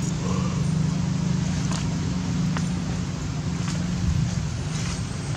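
Steady low motor hum, with a few faint clicks.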